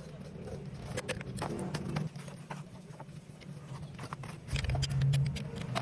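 Scattered metallic clicks and knocks from work on a steering rack assembly, over a low steady hum that swells briefly near the end.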